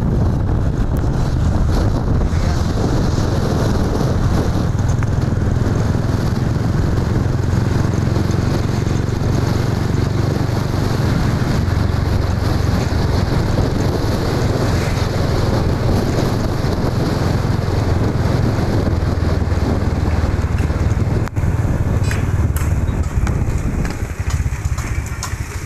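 Riding noise from a moving motorcycle: a steady rush of wind on the microphone over the running engine, with a deep rumble throughout.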